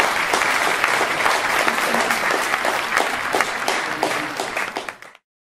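Audience applauding with steady clapping, cutting off about five seconds in.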